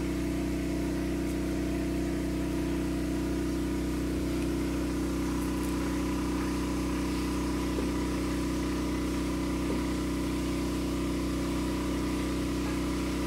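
An engine running steadily at one even pitch, a constant hum without change, with a few faint clicks over it.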